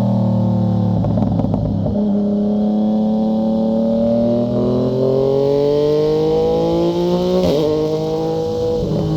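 Yamaha MT-09's three-cylinder engine through a Fuse Caracol exhaust with the dB killer removed. There is a burst of crackle about a second in, then the engine note climbs slowly for several seconds and drops sharply about seven and a half seconds in.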